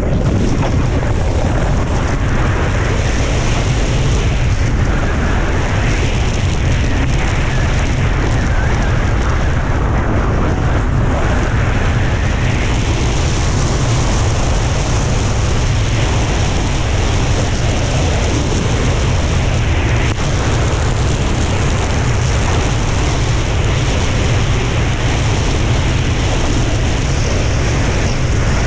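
Wind rushing over a GoPro's microphone at speed, buffeting heavily, over a steady hiss of a snowboard carving and scraping across hard-packed snow.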